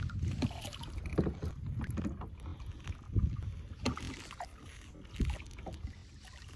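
Water splashing and lapping around a kayak on the move, in irregular splashes about once a second, with some wind on the microphone.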